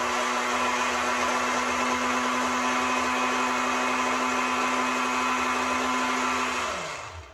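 Countertop blender running steadily, puréeing peppers, onions, ginger and garlic with water. Near the end the motor is switched off and its hum falls in pitch as it winds down.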